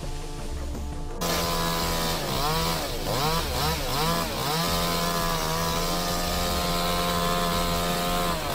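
Chainsaw engine comes in loudly about a second in, its pitch dipping and rising several times as the throttle is eased and opened, then held steady at high revs.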